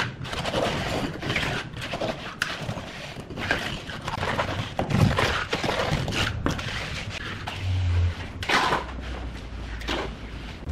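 Hand float scraping and swishing over wet concrete as it is worked back and forth to smooth a countertop, with many short gritty scrapes. A low hum comes in about eight seconds in.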